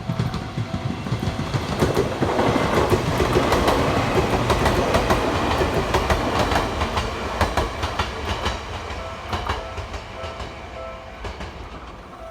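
Electric train passing close by over the level crossing, its wheels clattering over the rail joints in rapid clicks; it is loudest a few seconds in and fades toward the end.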